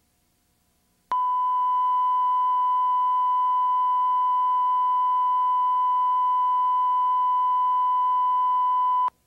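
Steady test tone at about a thousand hertz, the line-up tone used between spots on a videotape of TV commercials; it starts abruptly about a second in and cuts off abruptly after about eight seconds.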